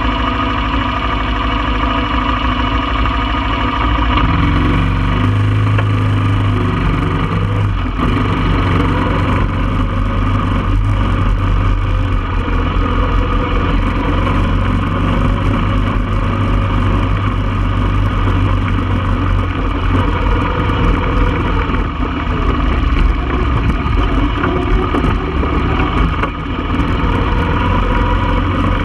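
1995 Honda Foreman 400 ATV's single-cylinder four-stroke engine idling, then pulling away about four seconds in and running steadily as the four-wheeler rides across the field.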